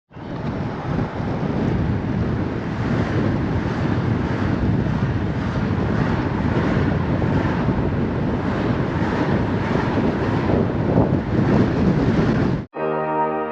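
Steady wind rushing over the microphone, mixed with the wash of sea surf; it cuts off abruptly near the end.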